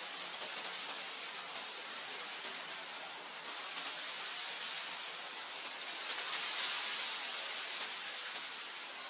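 Wind blowing over grassland as a steady, even hiss, swelling slightly about six to seven seconds in.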